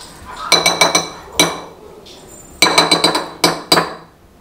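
A metal utensil clinking against dishes in two quick runs of ringing taps, the first about half a second in and the second about two and a half seconds in.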